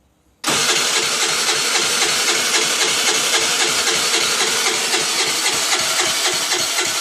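A 2008 Baotian Tanco 50cc four-stroke scooter engine being cranked over, starting abruptly about half a second in and holding a steady, fast pulsing beat, during a hard start.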